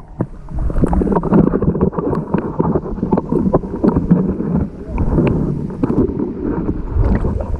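Muffled water noise heard through a submerged action camera beside an inflatable rubber boat, dull and lacking treble, with many small knocks and clicks against the housing.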